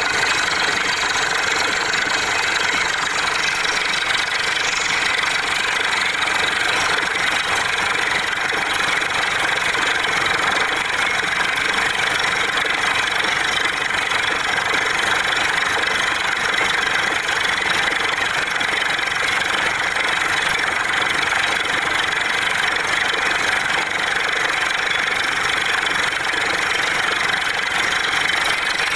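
Borewell drilling rig running steadily while drilling into rock, its engine droning under the rush of air blowing rock cuttings and water up out of the borehole around the drill pipe.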